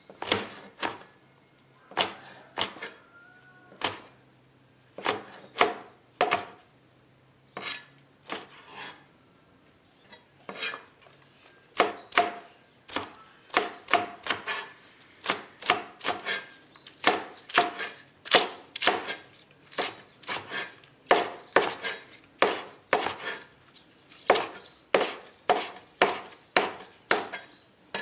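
Knife chopping on a cutting board in repeated sharp strikes. They are sparse and irregular at first, then settle into a steady run of about two a second.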